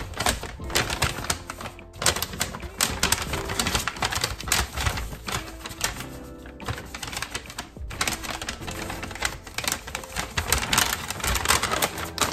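A brown paper bag crinkling and rustling in quick crackles as it is folded and rolled shut by hand, over background music.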